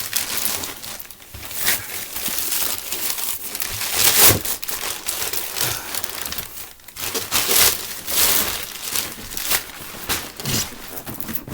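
Packaging being crumpled and torn open by hand: an irregular run of crinkling and rustling with several louder crackles.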